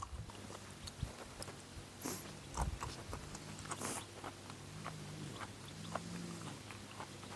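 Dog chewing and eating: faint, irregular clicks and crunches.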